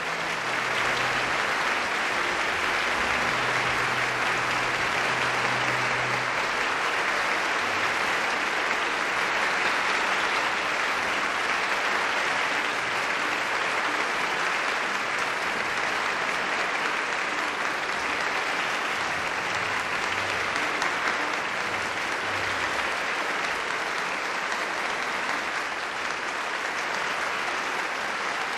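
A large concert-hall audience applauding steadily, the dense clapping of a full house welcoming the pianist onto the stage.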